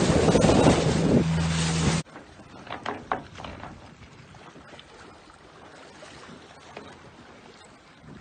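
Boat's engine droning steadily under loud rushing bow water and wind noise on the microphone. About two seconds in, an abrupt cut to much quieter light wind and soft water lapping against the hull.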